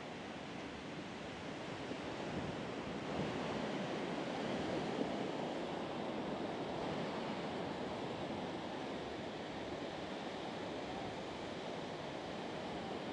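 Ocean surf breaking and washing onto a sandy beach: a steady rushing wash that swells a few seconds in.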